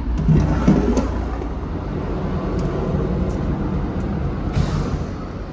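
Steady low rumble of a running engine, with a few light clicks and a short hiss about four and a half seconds in.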